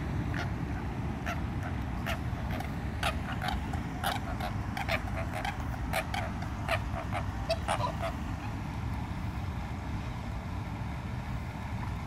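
Waterfowl calling: a fast string of short calls that thins out after about eight seconds, over a steady low rumble.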